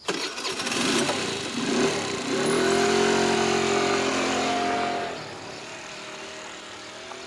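Motor scooter with two riders pulling away and driving past, its engine note building and holding steady, then fading away after about five seconds.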